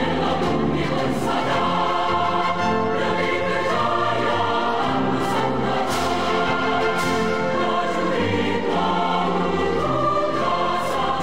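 Music with a choir singing long held chords.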